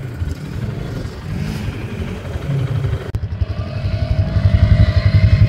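ATV engine running with a fast, pulsing rumble. The sound changes abruptly about three seconds in, then grows louder.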